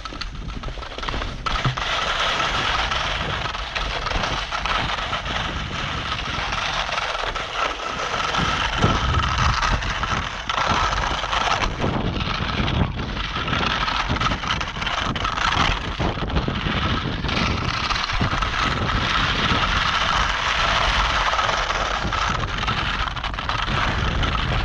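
Skis sliding over hard, wind-crusted snow, a continuous scraping hiss that flickers with the texture of the surface, with wind buffeting the microphone underneath.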